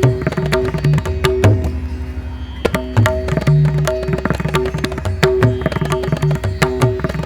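Background music: drum strikes in a quick, uneven rhythm over steady held notes.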